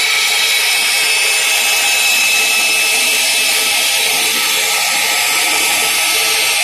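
Band saw machine running with a steady whine and dense high hiss.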